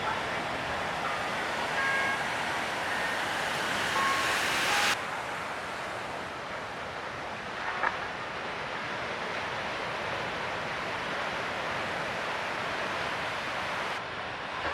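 Ocean surf and wind noise on the microphone, a steady rushing hiss. About five seconds in it drops abruptly to a softer, duller hiss.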